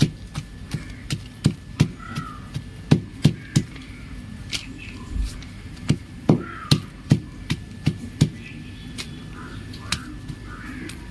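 Chalk being crumbled and snapped by hand, a run of sharp, irregular crunches and cracks, one to three a second, thinning out near the end.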